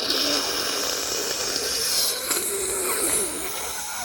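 A long, forceful nose blow: air hissing out through the nostrils. It starts suddenly and keeps going without a break.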